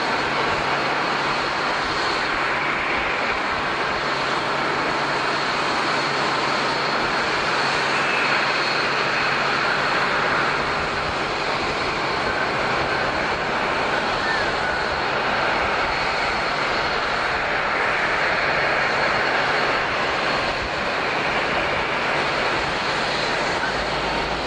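Jet airliner engines running at idle: a steady rushing noise with a thin high whine.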